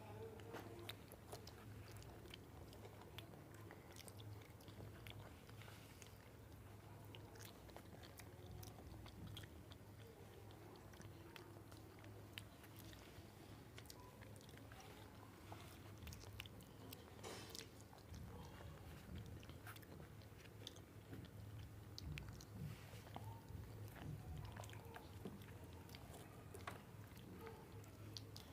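Faint chewing and biting of bananas by people eating quickly, with scattered small mouth clicks over a steady low hum.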